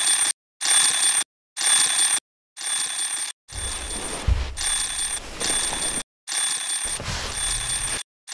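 Alarm clock ringing in bursts separated by brief silent gaps: short rings about once a second at first, then longer stretches of ringing from about three and a half seconds in.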